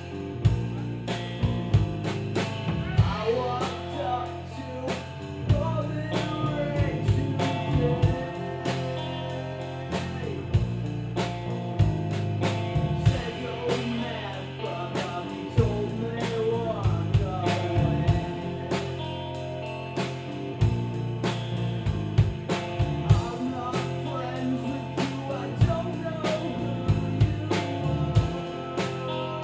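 A rock band playing live: a drum kit with frequent drum and cymbal hits, electric guitar, and a steady bass line underneath.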